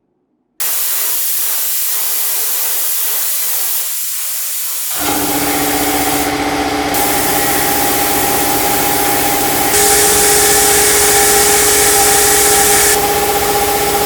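A steady spray-like hiss for about four seconds, then a small electric motor tool starts and runs at a steady speed with a constant whine, growing louder about ten seconds in.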